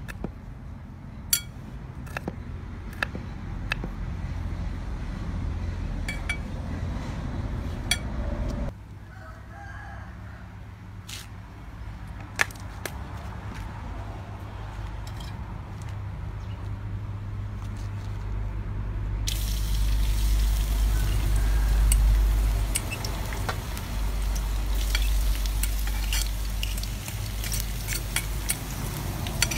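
A knife cutting chilies on a wooden chopping block, a sharp knock with each stroke, every second or so. About a third of the way in this gives way to a steel wok of oil heating on a portable gas stove, and about two-thirds of the way in a steady hiss starts: chopped garlic sizzling in the hot oil. A low rumble runs underneath.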